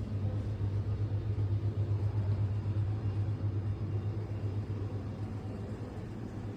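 A steady low rumbling drone, wavering slightly in loudness.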